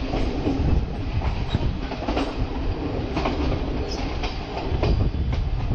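Passenger train running over the tracks: a steady low rumble with wheels clacking irregularly over rail joints and points.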